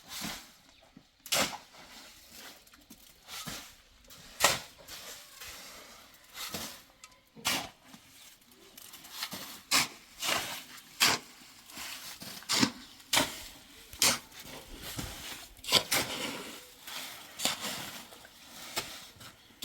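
A series of sharp knocks or clacks at irregular intervals, roughly one a second, with soft rustling between them.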